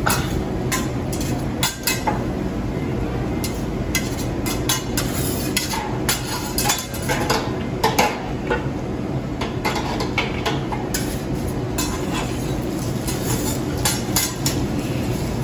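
Metal spatulas scraping, chopping and clacking on a steel teppanyaki griddle as fried rice and egg are worked, giving irregular sharp taps and scrapes over a steady low background hum.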